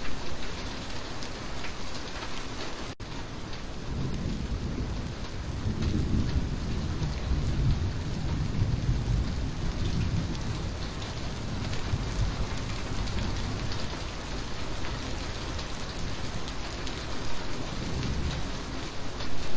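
Steady rainfall, an even hiss of drops on a surface, with a low rumble of thunder swelling through the middle. The sound drops out for a split second about three seconds in.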